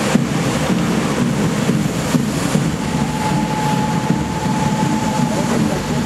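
Large show fountain's water jets spraying, a steady loud rushing noise. A thin, steady high tone sounds for about two and a half seconds in the middle.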